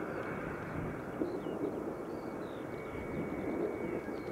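Boeing 737 MAX 8's CFM LEAP-1B turbofan engines running as the airliner rolls out along the runway after landing: a steady rumble. Faint high chirps sound above it.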